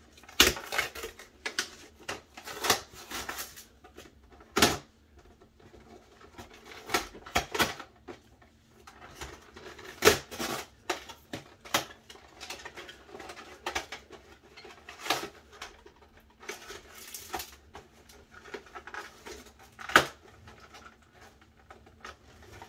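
Cardboard collectible card box and its paper packaging being torn open and handled by hand: irregular ripping, crinkling and sharp clicks. The loudest snaps come about half a second, ten and twenty seconds in.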